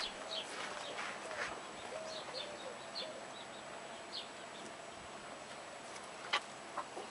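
Birds chirping in short, scattered high calls, with a few short lower calls in the first half, and one sharp click about six seconds in.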